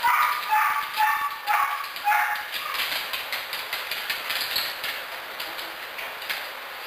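A dog barking, about five short barks in quick succession over the first two and a half seconds.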